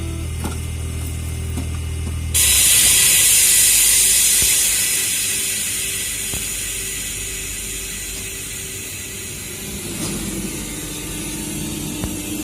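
RER electric commuter train at a platform: a low electric hum, then about two seconds in a sudden loud hiss of released air that slowly fades, over faint regular mechanical ticking.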